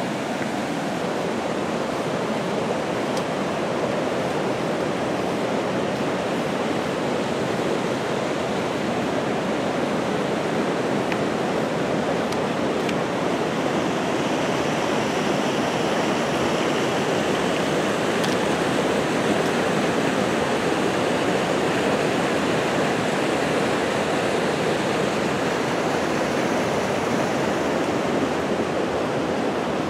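Steady rush of a stream pouring over and through a low concrete bridge, with whitewater spilling off the bridge's edge.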